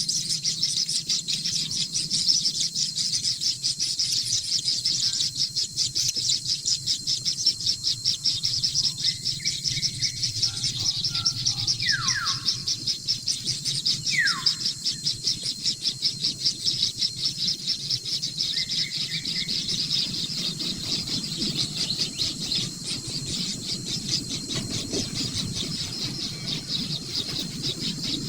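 Newly hatched kingfisher chicks begging: a high-pitched, fast pulsing chatter that keeps on without a break, with two short falling whistles near the middle.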